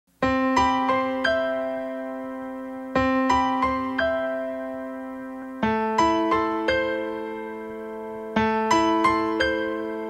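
Slow electric-piano music: a chord struck about every two and three-quarter seconds, each followed by a few added notes that ring on and fade away.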